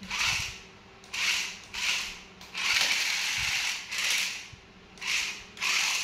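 The electric gear motors of a toy remote-control stunt car run in short bursts, about seven of them, each lasting a second or less, as the car is driven and turned on a tile floor.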